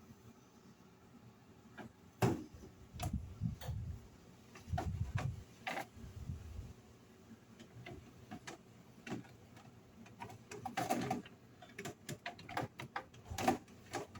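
Irregular clicks, knocks and soft thumps of household items being handled and set down, with short bursts of clatter about eleven and thirteen seconds in.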